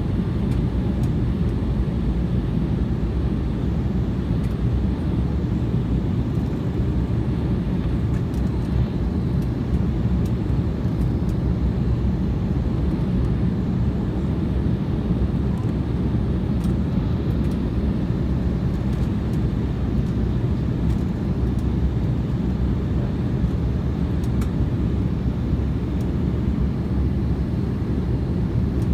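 Steady low drone of an airliner's engines and rushing air, heard from inside the passenger cabin.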